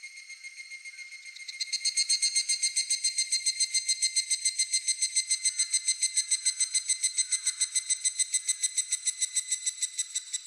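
Higurashi (evening cicada) calling: a loud run of rapid, ringing pulses, about seven a second, starting about a second and a half in and continuing to the end. Underneath are fainter pulsing and a steady high insect tone.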